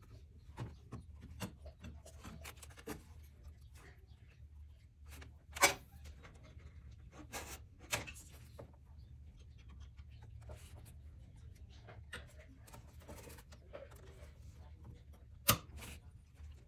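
Scattered light clicks and rustles of parts and tools being handled, with two sharp knocks, one about six seconds in and one near the end, over a low steady hum.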